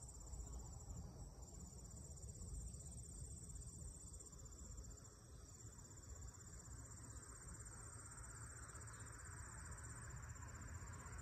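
Insects chirring: a faint, steady, high-pitched pulsing trill, over a low rumble on the microphone.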